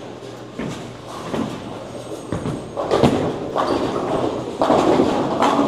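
Bowling alley din: a bowling ball thuds onto the lane about three seconds in and rumbles down the wood, over the rolling balls and clatter of the neighbouring lanes.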